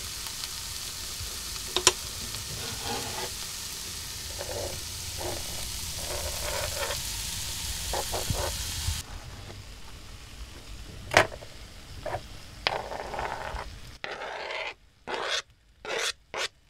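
Onions and mushrooms sizzling in a frying pan, with a few sharp knife knocks on a cutting board as tomatoes are chopped; the loudest knock comes a little past halfway. The sizzle drops away about halfway through, and near the end short snatches of frying and stirring are broken by brief silences.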